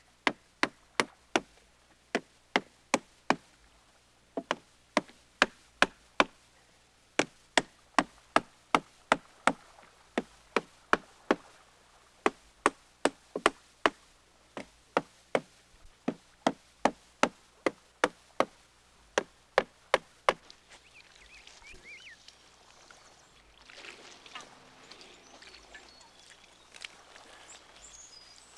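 Wooden mallet knocking wooden ribs into place inside a bark canoe's hull: sharp wooden knocks, about two a second, in runs with short pauses, stopping about twenty seconds in.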